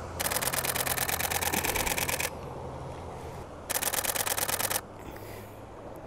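Camera shutter firing in high-speed continuous mode: two bursts of rapid, evenly spaced clicks, a long one of about two seconds and then a shorter one of about a second.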